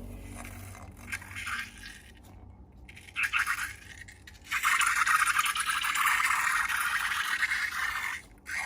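Crackly scraping of slime-making materials being handled: two short bursts, then a long continuous stretch of dense crackling from about halfway in that stops shortly before the end.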